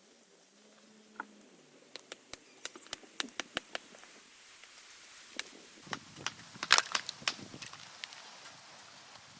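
Small pieces of wood kindling being broken and handled: a run of sharp cracks and knocks starting about two seconds in, with the loudest cluster about two-thirds of the way through.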